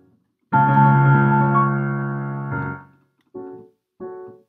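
Solo piano playing a short instrumental passage in a cabaret song. A loud chord comes in about half a second in and fades away over about two seconds, then two short, detached chords follow.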